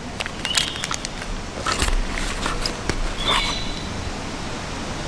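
Foil wrapper of a ChemLight lightstick crinkling and crackling as it is torn open and pulled off, in a run of sharp crackles over the first three seconds or so. Two short high chirps sound in the background.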